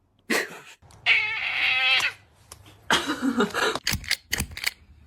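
A cat meowing in two drawn-out calls of about a second each, followed by a few sharp clicks or knocks near the end.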